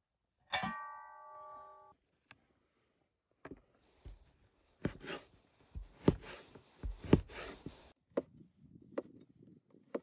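A metal cauldron lid set down with a clank that rings for about a second and a half. Then a cleaver chops beef fat on a wooden cutting board: a string of uneven, sharp chops.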